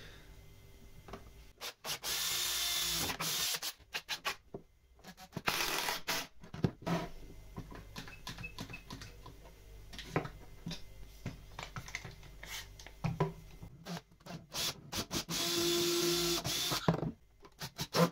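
Makita cordless drill run in short bursts of about a second, boring into pine timber at the corner joints of a triangle frame, with clicks and knocks of clamps and tools being handled in between.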